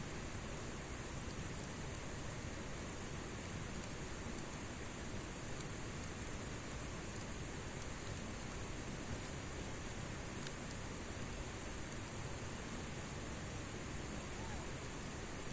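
Insects, likely crickets, chirping in a high pulsing trill about once a second over a steady low rushing noise. Hardly any sharp crackles are heard.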